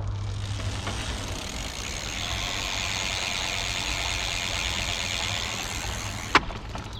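Rear wheel of a 1990s steel mountain bike spinning freely, its 5-speed Shimano freewheel's pawls ticking so fast they blend into a steady buzz. One sharp click about six seconds in.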